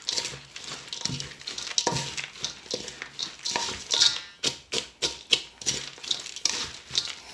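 Wooden spoon stirring a dry mix of coarsely crushed saltine crackers with chopped celery and onion in a stainless steel bowl. It makes an irregular run of crunchy scrapes and clicks.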